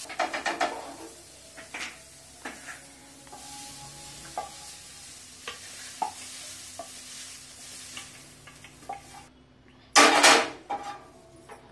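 A wooden spatula scraping and knocking against a frying pan as fried onions and green chillies are scraped out of it. The scrapes and knocks come in short separate strokes, with a brief loud rushing burst about ten seconds in.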